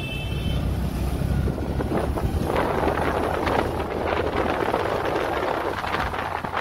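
Wind noise on the microphone over a vehicle's running engine and road noise, the wind growing much louder about two and a half seconds in.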